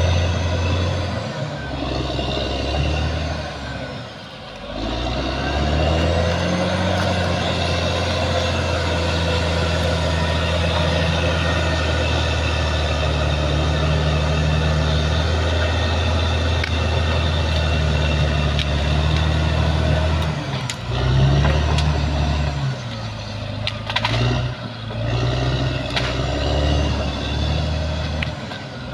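Caterpillar D6R XL bulldozer's diesel engine running under load, dipping briefly about four seconds in, holding steady, then rising and falling over the last third, with a few sharp clicks.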